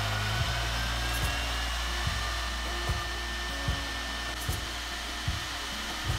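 Spindle motor of a rail-mounted mortising machine running at speed, a rushing noise with a faint whine that rises a little over the first second as its straight bit cuts into hardwood. Background music with a low, steady beat about every 0.8 seconds.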